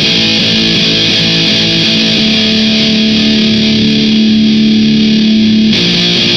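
Distorted electric guitar playing a metal riff through an amp head and half-stack cabinet: short chugged notes, then a single note held for about four seconds from around two seconds in, before the choppy riff picks up again near the end.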